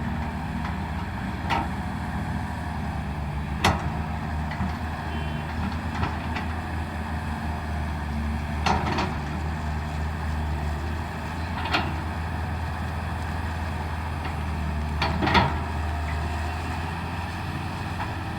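Heavy diesel earthmoving machinery running steadily with a low engine hum, broken by several sharp knocks a few seconds apart, the loudest about fifteen seconds in.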